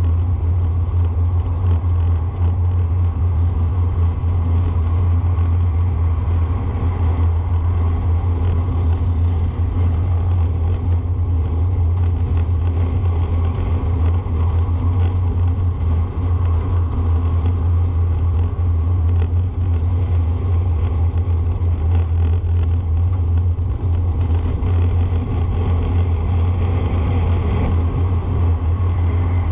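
Steady low rumble of a car being driven at steady speed, engine and tyre noise heard from the moving vehicle, with little change in level.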